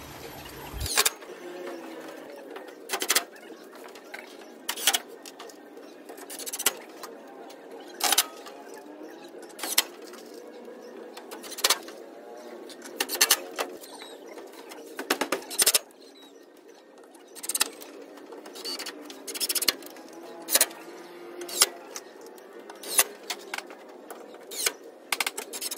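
Nail gun firing as wooden wall panels are fastened to a frame: a sharp shot every second or two, sometimes two in quick succession. Doves coo faintly in the background.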